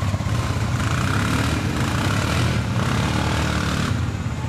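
ATV engine running, its revs rising and falling, and the sound changes abruptly about four seconds in.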